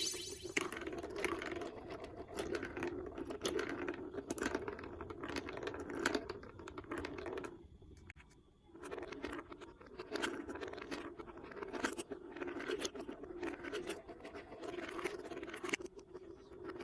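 Plastic marble run building blocks being handled: many small clicks and clacks over steady scraping, with a brief pause about eight seconds in.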